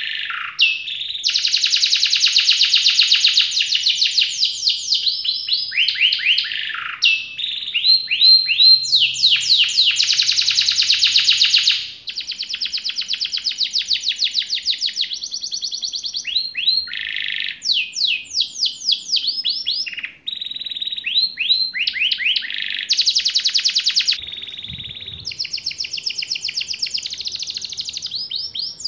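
Domestic canary singing a long song of rapid trills and rolling runs of fast repeated notes, broken by short downward-sweeping notes.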